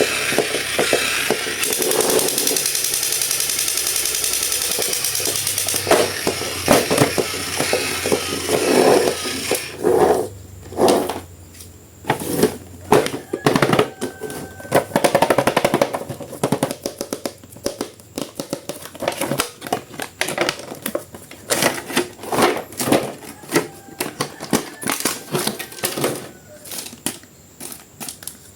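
Music for the first several seconds, then a long run of irregular crackles and sharp clicks from plastic toy packaging being handled and opened.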